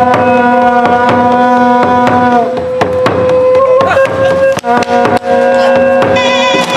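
Traditional Khmer music: a wind instrument holds long, slightly bending notes over quick drum strikes.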